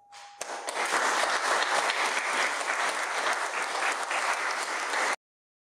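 Audience applauding a choir at the end of a song. The applause swells in about half a second in, over the fading last note of the final chord, and cuts off suddenly near the end.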